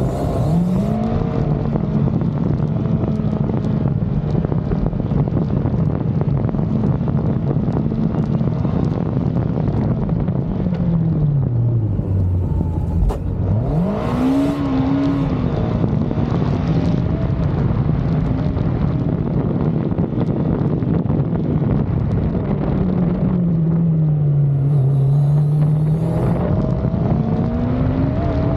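Yamaha FJ sidecar's inline-four engine pulling hard, heard from on board. The revs hold high, fall away sharply about eleven seconds in, then climb steeply again. They dip once more and rise back up near the end.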